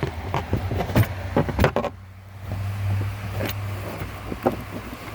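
Scattered clicks, knocks and rubbing as an old automatic-transmission shift cable is pulled out through the floor of the car, over a steady low hum.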